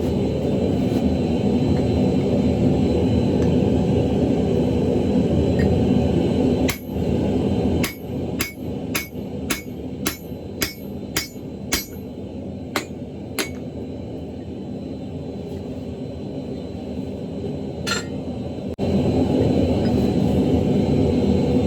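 Blacksmith's hammer striking hot axle-shaft steel on an anvil: about a dozen ringing blows, roughly two a second, then a single blow a few seconds later. A steady roar fills the start and comes back near the end, quieter while the hammering goes on.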